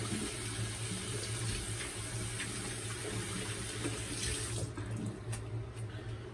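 Bathroom sink faucet running steadily while the face is rinsed. The water cuts off about three-quarters of the way through, followed by a few faint clicks.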